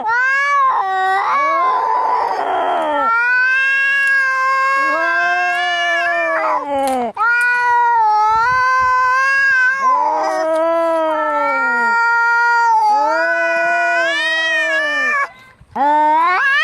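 Angry domestic cats caterwauling, as in a fight: long, drawn-out yowls that waver up and down in pitch, one after another. About two seconds in there is a short, rough, hissing cry, and the yowling breaks off briefly near the end.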